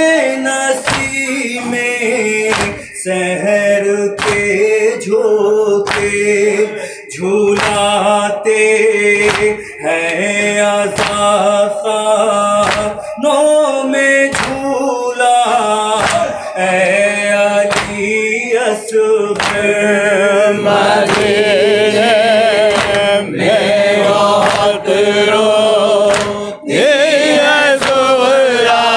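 Unaccompanied male voice singing a noha lament into a microphone, with sharp chest-beating strikes from the mourners in time, about one a second. In the later part, other voices join the chant.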